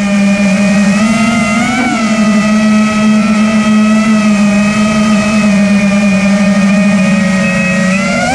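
Vortex FPV racing quadcopter's brushless motors and propellers whining steadily in flight, picked up by the GoPro mounted on it. The pitch rises briefly about two seconds in and again at the end.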